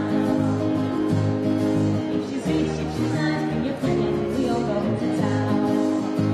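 Live band playing: strummed acoustic guitar over electric bass guitar, with voices singing.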